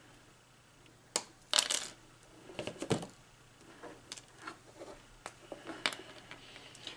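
RJ45 crimp tool's stripping blade clicking as the outer jacket of a Cat 5e cable is scored and pulled off, with a sharp click about a second in and a quick cluster of clicks after it. The tool is set down on a cardboard box around three seconds in, followed by light ticks of handling the cable end.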